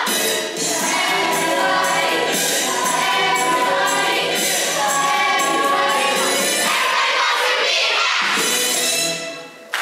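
A stage cast singing together in chorus over musical accompaniment. The song ends on a final held chord near the end.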